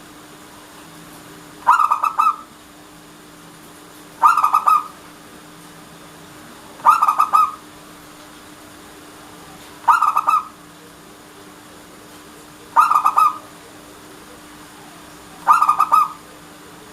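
Zebra dove (perkutut) cooing: six short phrases of quick staccato coos, each about half a second long, repeated about every three seconds.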